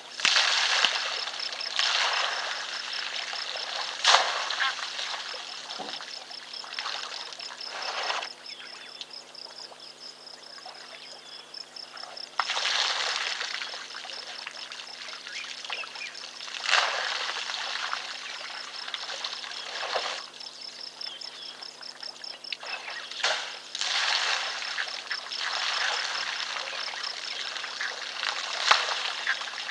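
African elephant drinking at a waterhole: water splashing and pouring as it works its trunk in the water, in bursts every few seconds with a few sharp splashes.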